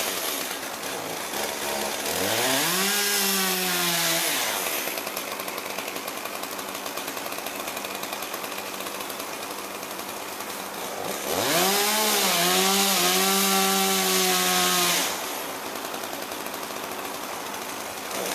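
Two-stroke chainsaw up in the tree idling and twice revved up to full throttle: briefly about two seconds in, and for about three and a half seconds from about eleven seconds in.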